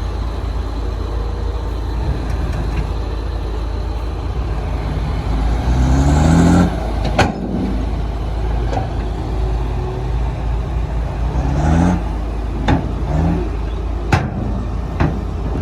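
Heavy diesel engine of earthmoving machinery running with a steady low rumble, revving up twice, about six and twelve seconds in, with a few sharp knocks in between and near the end.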